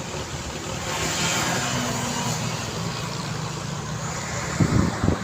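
Street traffic: cars and trucks driving by with a steady engine rumble and tyre noise, one vehicle passing close about a second in. Two loud low thumps near the end.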